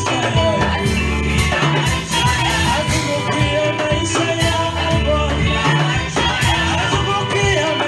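Live gospel worship song: men's voices singing into microphones over an accompaniment with a steady beat and bass.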